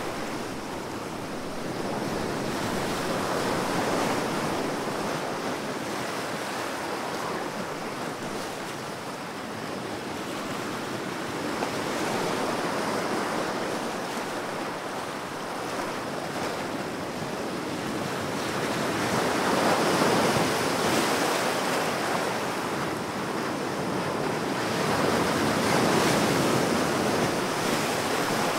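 Ocean waves breaking on a shore, a steady wash of surf that swells and eases in slow surges every six to eight seconds.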